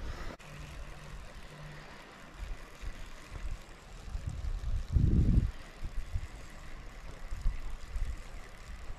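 Wind buffeting the camera microphone: an irregular low rumble that rises and falls, with one stronger gust about five seconds in.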